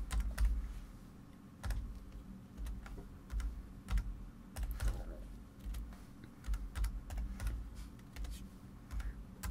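Typing on a computer keyboard: irregular, scattered key clicks as numbers are entered.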